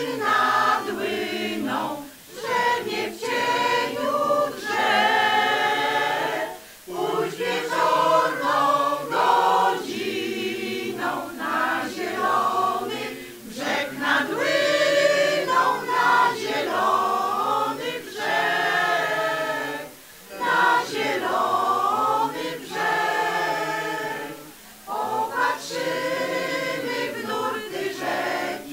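Mixed choir, mostly women's voices, singing a song, with short breaks between phrases every few seconds.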